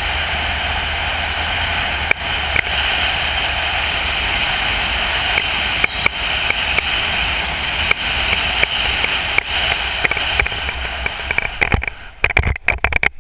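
Wind rushing steadily over a helmet-mounted camera's microphone during a parachute descent under an open canopy, with a few faint ticks. Near the end, at touchdown in tall grass, the steady wind noise breaks up into choppy, uneven bursts.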